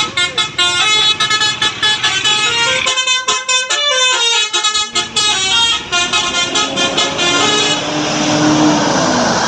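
Bus telolet horn playing a fast tune of short, changing musical notes. The tune stops about eight seconds in, leaving a rushing vehicle noise.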